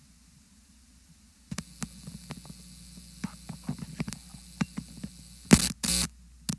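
Faint low electrical hum, then from about a second and a half in, irregular sharp clicks and taps, with a few much louder, short rustling or scraping noises near the end.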